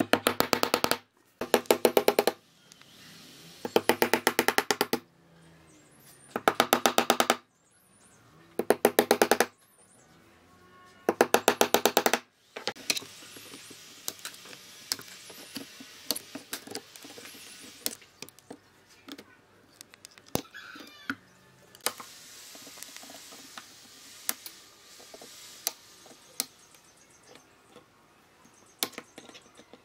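Claw hammer driving steel nails into pine boards in six runs of rapid strikes over the first twelve seconds or so. After that come scattered single sharp clicks of cutting nippers snipping off the protruding nails.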